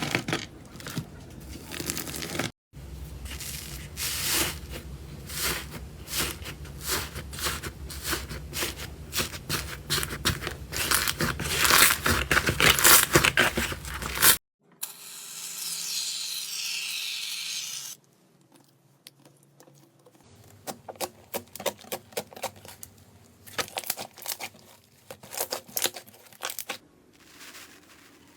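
Slime being squeezed, poked and stretched by hand in a series of short clips: dense crackling clicks and pops, loudest about twelve seconds in. Midway, after a cut, comes about three seconds of steady hiss.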